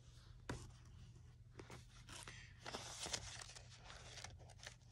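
Faint rustling and a few light clicks, a little busier in the middle, over a low steady hum.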